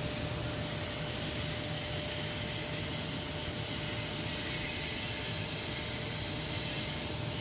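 Steady factory machinery noise: an even hiss and rumble with a low hum and a faint steady tone, unchanging throughout.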